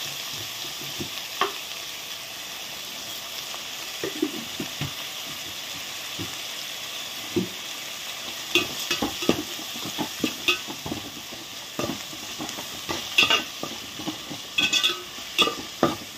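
Onions, tomatoes, green chillies and curry leaves sizzling in oil in an aluminium pot, a steady frying hiss. A perforated steel spoon stirs them, clinking and scraping against the pot, more and more often in the second half.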